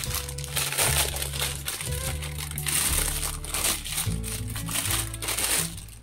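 Clear plastic wrapping crinkling as pop it fidget toys sealed in it are handled and moved, over background music with a low bass line.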